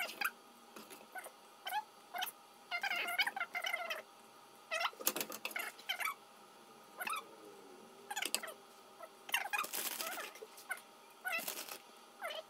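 A wooden spoon scraping and knocking as fried topping is scooped out of a frying pan and spread over a pizza on a baking tray, with short squeaky pitched sounds among the scrapes.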